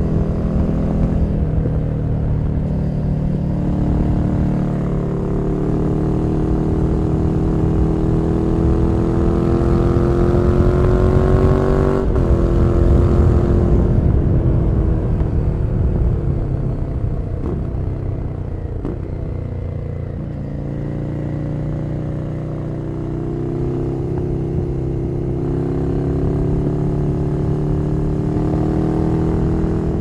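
A Ducati Scrambler Nightshift's 803 cc air-cooled L-twin running through a Zard Zuma slip-on exhaust. The engine note climbs steadily under throttle, drops off sharply about twelve seconds in and winds down for several seconds as the bike slows, then climbs again toward the end.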